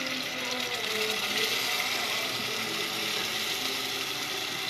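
Tomato sauce pouring from a glass jar into a pot of hot oil with frying onion and garlic; the oil sizzles with a steady hiss.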